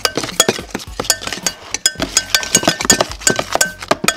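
Metal spoon stirring thick slime in a glass bowl, clinking against the glass in rapid, irregular strikes, several a second, each with a short ring.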